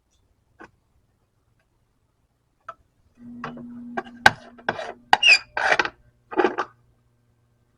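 Metal clinks and short scrapes from working the lead-melting pot and sinker mold, several sharp clicks bunched in the second half, with a low steady hum under part of it.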